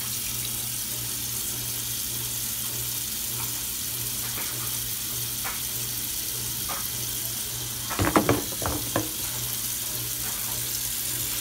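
Cold tap water running steadily into a pot of pig feet, filling it until they are covered. About eight seconds in comes a quick cluster of knocks.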